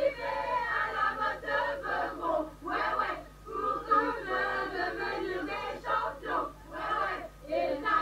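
A group of young people chanting and shouting together in unison, many voices overlapping in short bursts with brief breaks.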